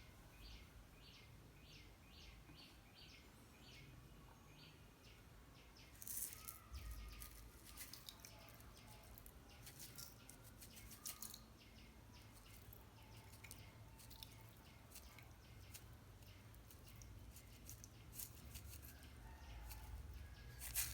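Faint sticky clicks and crackles of slime being pressed and stretched, in scattered bursts from about six seconds in. In the first few seconds there is only a faint run of high chirps, about three a second.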